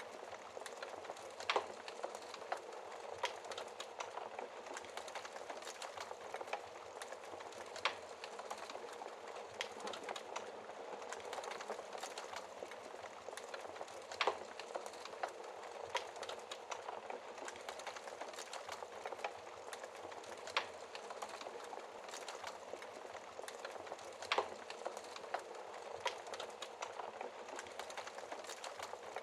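Wood fire crackling in a fireplace: a steady hiss of burning, with small crackles scattered irregularly throughout and several louder, sharper pops.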